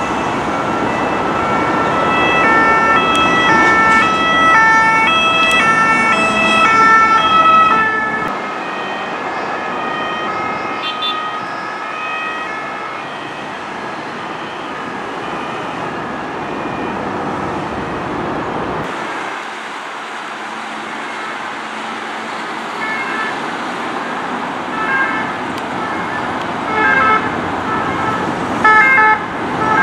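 French ambulance's two-tone siren alternating between two notes over highway traffic noise. It is loudest in the first eight seconds, then fainter, and louder again near the end.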